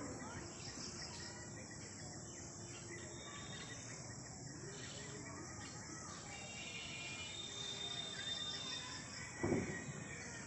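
Evening chorus of many small birds chirping, over a steady background of insects. A brief loud sound stands out near the end.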